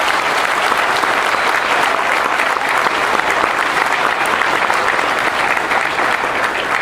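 Audience applause: many people clapping steadily, a dense even patter throughout.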